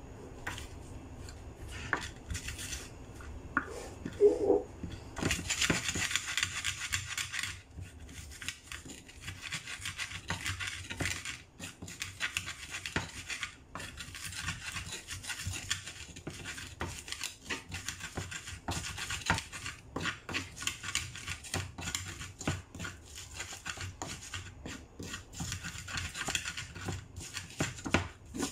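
Wooden pestle (ulekan) crushing and grinding shallots, garlic and peppercorns on an earthenware cobek mortar, wood on clay. A few separate knocks in the first seconds, then steady grinding and scraping with rapid small knocks.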